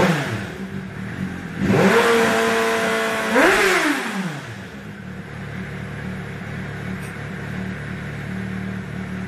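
Suzuki GSR 600's inline-four engine revved through a custom-built exhaust: a blip falling back right at the start, a rev held for about a second and a half from just under two seconds in, and a quick sharp blip at about three and a half seconds. It then settles to a steady idle.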